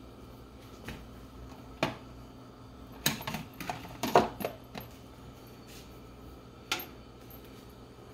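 Frying pan of olive oil heating on a gas burner, giving scattered sharp clicks and pops, with a dense cluster of them in the middle, over a faint steady hum.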